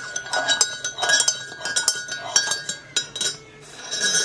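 Metal spoon stirring in a Rae Dunn ceramic coffee mug, clinking against the sides several times a second while the mug rings with a steady tone.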